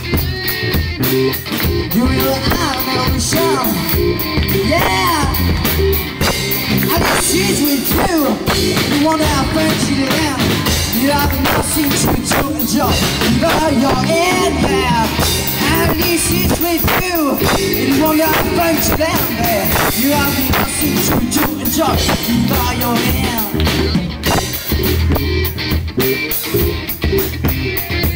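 Live rock band playing loud and without a break: electric guitar, bass guitar and drum kit together.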